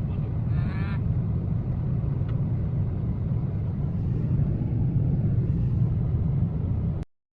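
Steady low rumble of a car driving, heard from inside the cabin; it cuts off abruptly near the end.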